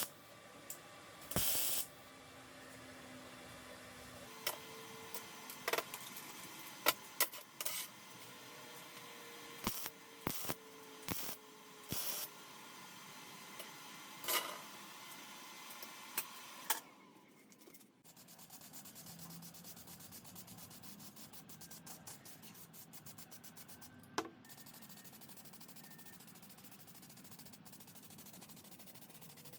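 Hand work on a workpiece: a series of short scrapes and knocks, then a faint, steady, fast rubbing like hand sanding.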